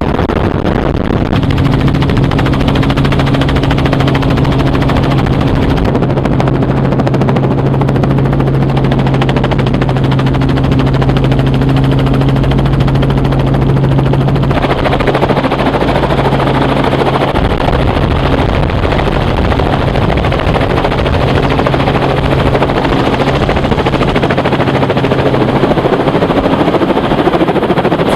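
Rapid, continuous automatic fire over a steady mechanical hum, like a minigun on a strafing run. The hum holds one steady pitch and fades out near the end.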